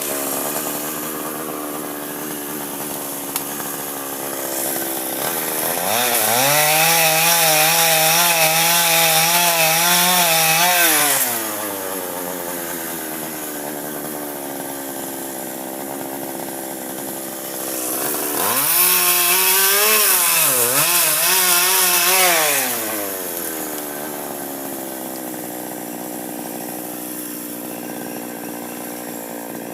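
Petrol chainsaw idling, then revved to full speed twice, first for about five seconds and later for about four, cutting through walnut wood. Its pitch wavers and dips under the load of each cut before it drops back to idle.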